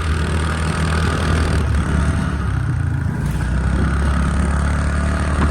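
Small scooter engine running steadily while riding, with a constant low drone.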